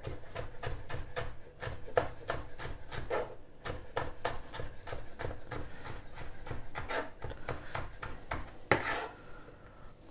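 Chef's knife dicing a bell pepper on a wooden cutting board: a quick, steady run of blade knocks on the board, several a second, with one louder, longer knock near the end.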